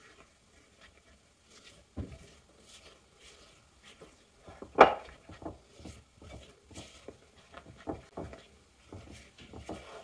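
Green silicone spatula stirring wet cake batter into flour in a glazed ceramic mixing bowl: irregular scraping and light knocks of the spatula against the bowl, the sharpest knock about five seconds in.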